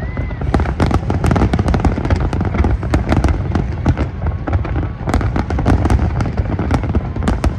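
Large fireworks display: many shells bursting in rapid succession, with overlapping bangs and crackles over a continuous low rumble.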